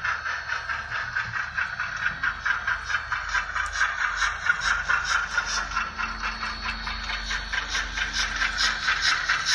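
Model steam locomotive's sound decoder chuffing steadily, about four chuffs a second, as it pulls a train of cars along the track, over a low steady hum.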